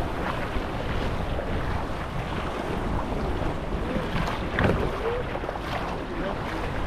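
Wind buffeting the microphone over choppy sea water sloshing and splashing around a kayak, with a louder splash about two-thirds of the way through.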